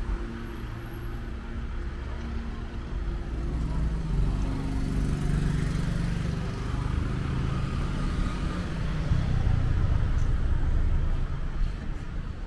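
Street traffic: cars passing with a steady low engine and tyre rumble, and a car engine humming close by for several seconds in the middle.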